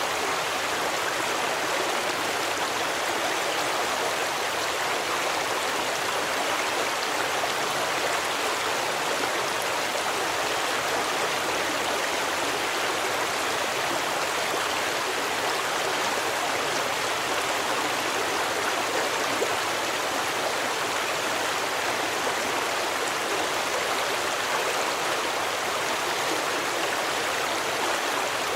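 Stream water rushing and splashing steadily, an even, unbroken flow.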